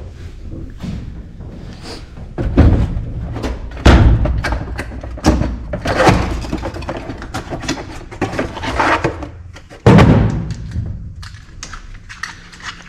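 Hard objects being handled and set down: irregular thunks and knocks, loudest about four seconds in and again about ten seconds in.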